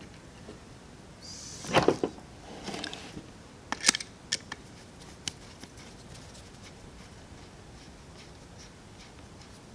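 Small parts of a Bing 64 carburetor handled on a workbench as its top cap is fitted: a brief scrape about a second and a half in, then a few sharp light clicks around four seconds and one more shortly after.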